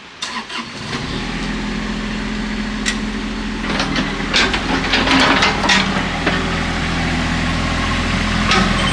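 Hitachi EX22 mini excavator's diesel engine cranking and starting, then running steadily. From about four seconds in, irregular metallic clanking and rattling over the engine as the machine starts to move.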